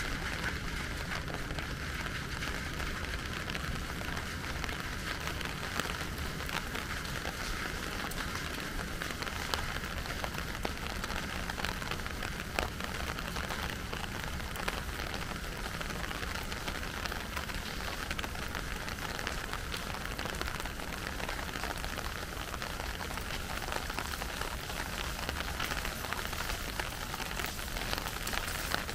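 Steady rain falling, an even hiss with scattered louder drops ticking through it.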